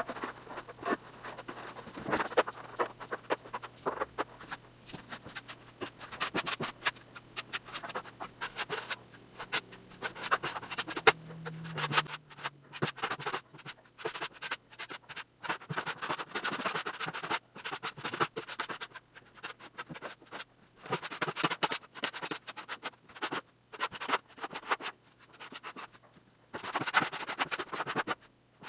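Drywall wall being hand-sanded or scraped, quick back-and-forth scratchy strokes over the joint compound, with a faint steady hum underneath.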